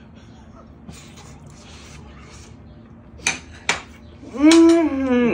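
A man tasting food: two sharp clicks, then a loud, drawn-out appreciative "mmm" of enjoyment lasting about a second, its pitch sinking slightly toward the end.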